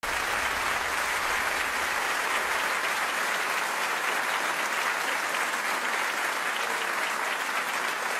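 A large theatre audience applauding steadily, the welcome applause for a performer walking on stage.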